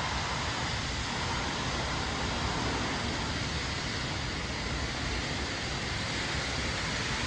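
Steady rushing background noise of a city street, even and unbroken, with no distinct events.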